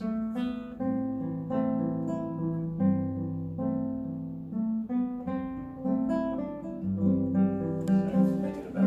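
Nylon-string classical guitar played solo: a plucked melody of a few notes a second over held bass notes.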